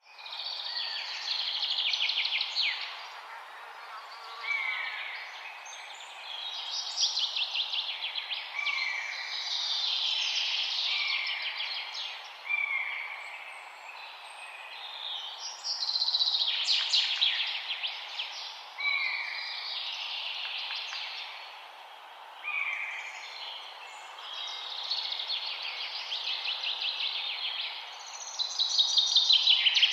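Songbirds singing in a forest: repeated phrases of fast, high trills alternating with short slurred notes, one phrase every few seconds, over a steady faint background hiss.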